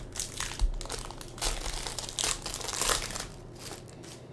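Crinkling and rustling as a just-opened Panini Prizm basketball card pack, its foil wrapper and cards, is handled, in irregular bursts.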